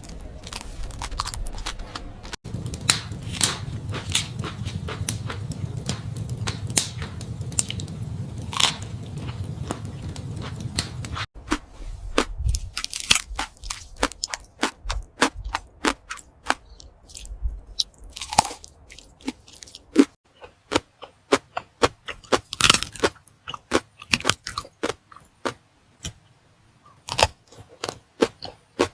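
Close-miked eating sounds: a rapid series of short wet clicks and smacks from chewing and mouth movements. A low background hum stops abruptly about 11 seconds in, after which the clicks come more sparsely.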